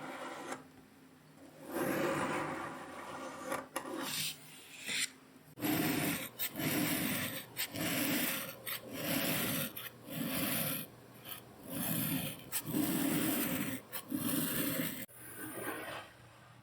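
Kinetic sand being cut and crushed: gritty, grainy scraping strokes, a few irregular ones at first, then from about six seconds in a steady run of strokes a little under a second apart that stops shortly before the end.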